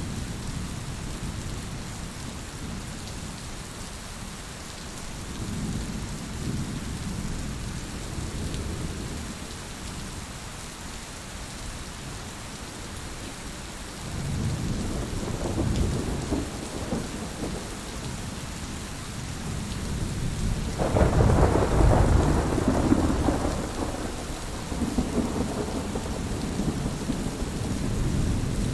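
Steady rain falling with thunder rumbling. The thunder swells about halfway through, and a louder peal breaks suddenly about three-quarters of the way in.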